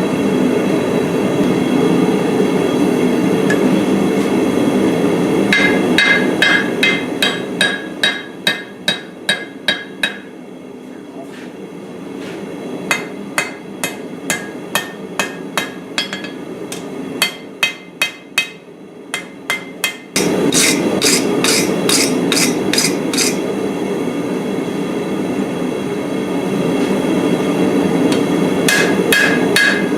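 Hammer striking hot steel on an anvil while forging a small cleaver, in quick runs of blows about two to three a second, each with a ringing anvil tone. Under the blows runs a steady low rushing noise that drops away for about ten seconds in the middle and comes back abruptly.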